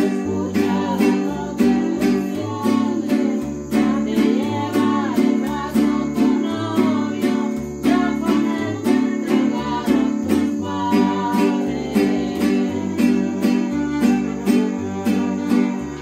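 Live string ensemble: a guitarrón plucks a bass line under strummed guitars, with a violin carrying the melody.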